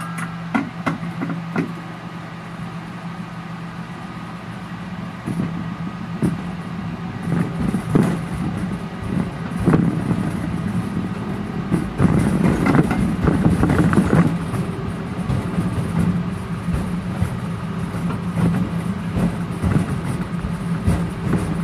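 Ride-on miniature train running on its track: a steady low motor hum with the rumble and clacking of its wheels on the rails, louder and rougher a little past the middle.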